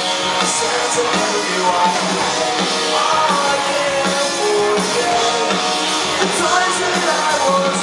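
Rock band playing live at a concert: loud electric guitars and steadily pounding drums, with a singer's voice over them.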